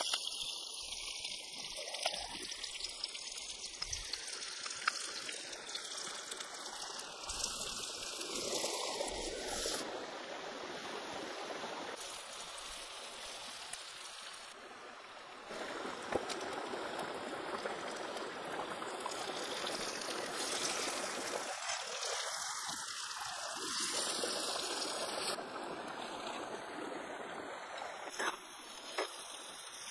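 Sliced lemongrass, chillies and herbs sizzling in hot oil in a wok over a wood fire, a steady hiss with fine crackles.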